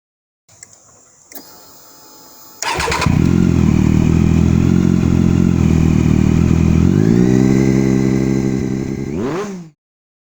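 Triumph Daytona 675R's three-cylinder engine on a straight-through carbon exhaust with no muffler, starting up suddenly about a quarter of the way in and idling steadily. Its pitch lifts a little past the middle, then a quick rev rises sharply and cuts off abruptly.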